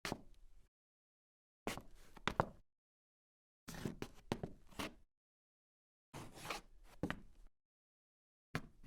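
A woman's footsteps as sound-effect samples: four short takes of a few sharp steps each, each about a second long, separated by dead silence, with a fifth take starting near the end.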